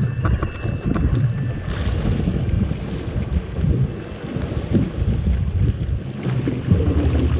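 Strong wind buffeting the microphone on a surfski at sea, over splashing water, in a 15–17 knot wind. A steady low hum joins near the end.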